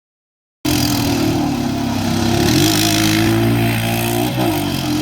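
Honda Foreman Rubicon ATV engine running, cutting in abruptly about half a second in, its pitch wavering up and down with a brief dip near the end.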